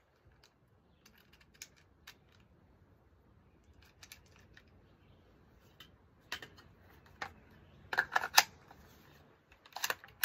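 Small clicks as .22 rounds are loaded into a Smith & Wesson M&P 15-22 rifle magazine, then louder clacks from about six seconds in. The loudest is a quick cluster of clacks about eight seconds in, with another near the end as the magazine goes into the rifle and the charging handle is worked.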